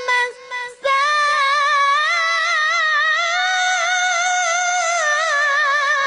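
A young boy's voice chanting Quran recitation in melodic tajweed style: a short opening phrase, a brief pause, then from about a second in one long held note with a quick wavering ornament that slowly rises in pitch.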